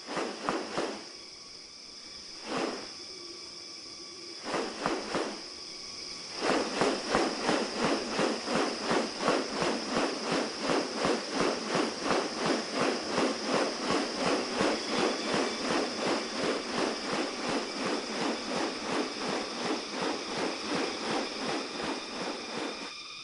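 Rainforest insects droning steadily at a high pitch, with a few sharp clicks early on. About six seconds in, a fast, regular pulsing of about three beats a second starts up over the drone and runs on.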